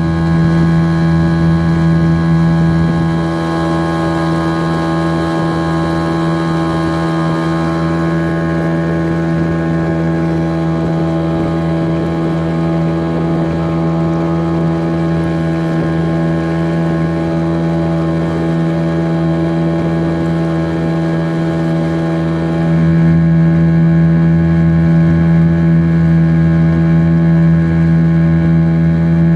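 Yamaha 2 hp outboard motor running at a steady throttle, pushing a small boat: an even drone whose pitch holds steady throughout. It gets slightly quieter about three seconds in and comes back up near the end.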